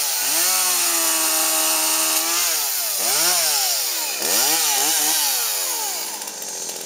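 Chainsaw engine held at high revs for about two seconds, then dropping and revved in several quick blips before falling back toward idle near the end.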